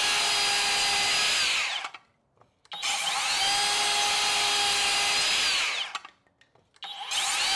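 Brushless cordless SKILSAW TRUEHVL worm drive circular saw crosscutting a pine board. Its blade whine holds steady, then winds down with falling pitch when the trigger is released about two seconds in. It spins up again for a second cut that winds down near six seconds, and starts a third cut near the end.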